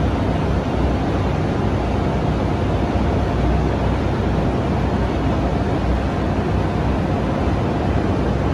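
A steady, unbroken roar of machinery or rushing air at an even level, with a low hum underneath.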